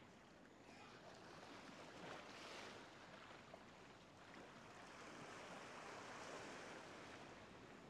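Faint ocean waves washing onto a shore. The wash swells about two seconds in and again, longer, from about five to seven seconds.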